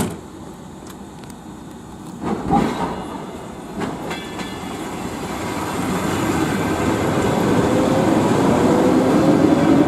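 ER2T electric multiple unit approaching at speed: the rumble and wheel noise grow steadily louder, with a rising whine over it. A sharp click right at the start and a loud knock about two and a half seconds in.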